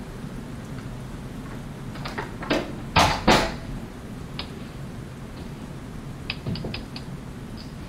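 A soft knock, then two loud knocks close together about three seconds in, followed near the end by a few faint light clicks, over a low steady rumble.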